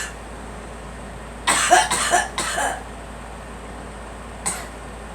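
A girl coughing: a quick run of three or four coughs about a second and a half in, then a single cough near the end.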